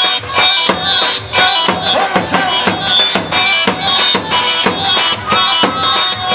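Kurdish wedding dance music played by a band, with a steady, driving percussion beat and a sustained melody line, the kind played for line dancing (govend/halay).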